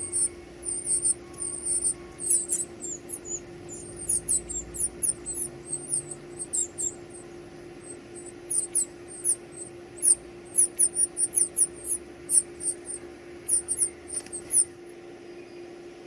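Northern cardinal nestlings begging: thin, very high-pitched peeps in quick runs of several a second, with short pauses between runs, stopping a little before the end. A faint steady hum runs underneath.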